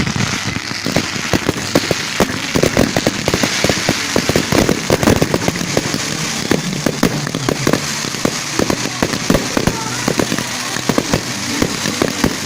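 Fireworks display: a dense, continuous run of sharp bangs and crackles, several a second.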